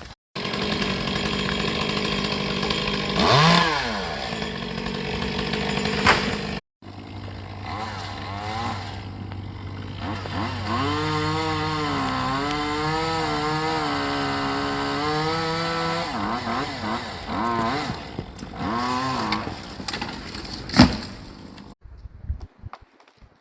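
Chainsaw running at high revs and cutting wood, its pitch rising, falling and wavering as it works into the cut. A sharp crack, the loudest moment, comes near the end, and the saw then stops.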